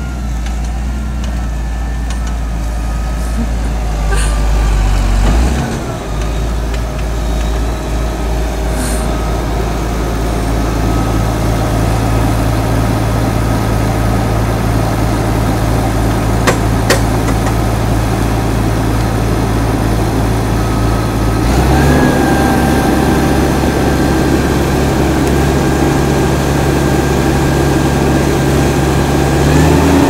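Massey Ferguson 6465 tractor engine running steadily under the load of a plough. Its pitch drops slightly about five seconds in and steps up again about twenty-one seconds in, with two short clicks near the middle.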